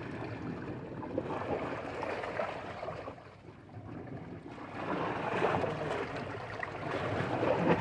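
Sea waves washing against the shore, rising and falling in loudness.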